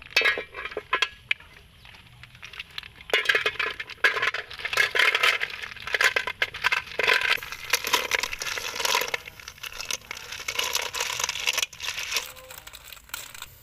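Snail shells clattering into a metal cooking pot as they are tipped and scooped out of a woven bamboo basket. Shell clicks against metal and against other shells, a few scattered clicks at first, then a dense rattling from about three seconds in until near the end.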